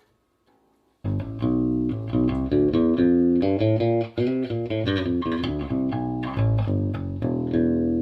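Electric bass guitar fitted with a Hipshot A-style brass bridge, played through an amp: after about a second of near silence, a quick run of plucked notes, ending on a note left ringing near the end.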